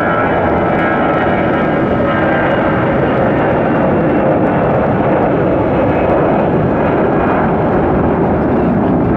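Jet airliner's engines, a loud, steady rush of jet noise with a faint whine that fades over the first second or two.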